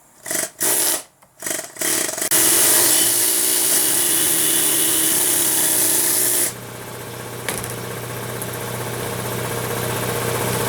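A power tool worked on a stuck U-joint in a truck axle shaft: several short bursts, then about four seconds of steady running that stops suddenly. After it stops, a steady machine hum slowly grows louder.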